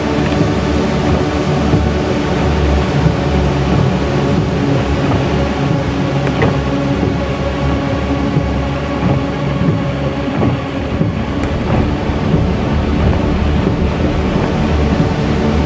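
Steady low rumble and hum of a car heard from inside its cabin as it drives along a flooded road in heavy rain.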